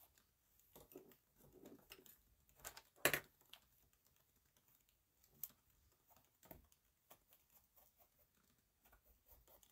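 Faint, scattered taps and light rustles from handling a quilted fabric piece, clear ruler and marking pen on a sewing table, with one sharper click about three seconds in.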